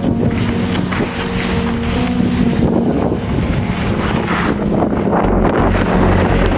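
Wind buffeting the microphone of a camera carried by a downhill skier, over a heavy low rumble, with skis scraping and hissing on packed snow in uneven surges.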